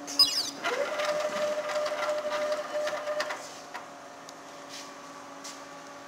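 Tajima multi-head embroidery machine running briefly: a sharp click, then a steady motor whine with busy mechanical clatter for about three seconds, which drops away to a low steady hum.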